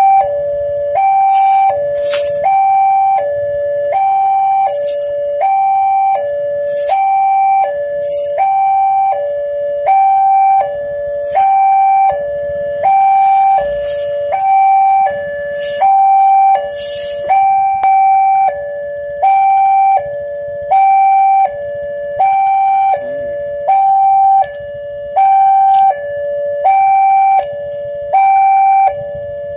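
Electronic two-tone railway level-crossing warning alarm, alternating steadily between a high and a low tone about once a second.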